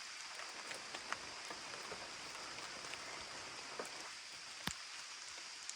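Steady rain falling in forest, with individual drops landing close by as distinct ticks, one sharper than the rest a little before the end.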